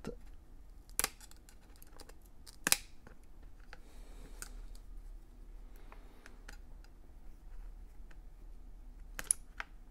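Metal tweezers clicking and ticking against a MacBook Air's trackpad cable connector and chassis: a few sharp clicks, the loudest about three seconds in and two in quick succession near the end, with faint small ticks between.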